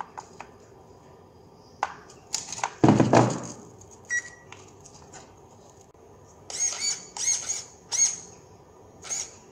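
A clatter of plastic as the RC truck's battery lead is plugged in, then a single short electronic beep from the ESC. Four short whirring bursts follow, typical of the new 15 kg steering servo being driven back and forth.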